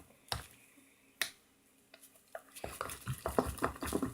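A mixing utensil stirring a wet soap and shaving-cream mixture in a container, clicking against the sides: two single clicks, then a quicker run of clicks and knocks in the second half.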